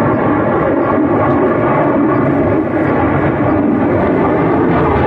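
Military jet aircraft flying overhead, its engine noise loud and steady.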